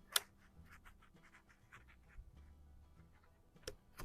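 Small scratchy handling noises and light clicks as a .22 pellet is pressed into the loading chamber of a Xisico XS46u underlever air rifle. A sharp click comes just after the start, and two more near the end.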